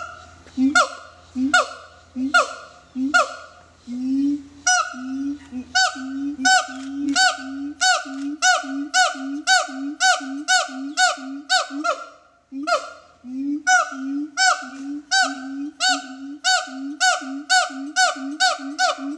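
Siamang calls: a long series of loud, evenly spaced hoots, each a short rising boom with a higher bark over it, about one every three-quarters of a second. There is a brief break about two-thirds through, and the calls come faster near the end.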